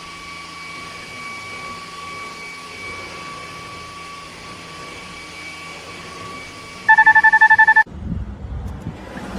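Cordless stick vacuum motor running with a steady whine and hiss. About seven seconds in, a rapid burst of loud beeps sounds for about a second. The motor sound then cuts off abruptly, leaving low rumbling.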